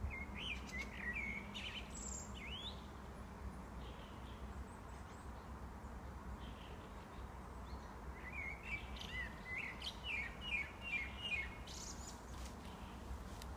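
Common blackbird singing two phrases over a steady low background rumble. The first phrase comes at the start and ends in a high squeaky note. The second, about eight seconds in, is a quicker run of notes.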